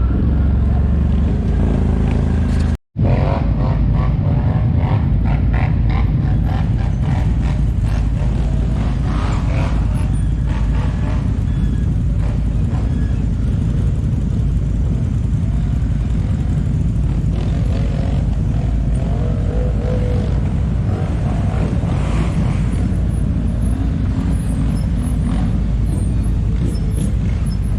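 ATV engines running with a heavy, steady low rumble. The sound drops out completely for a moment about three seconds in.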